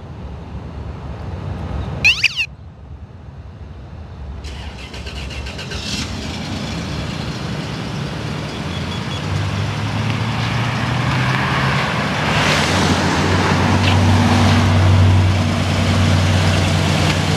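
A short electronic chirp about two seconds in, from the remote-start alarm pager. From about nine seconds the 1989 Toyota pickup's V6 engine can be heard idling steadily after a remote start, growing louder toward the end.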